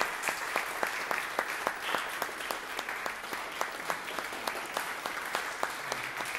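Applause from a small audience: a steady patter of hand clapping with individual claps standing out about three times a second.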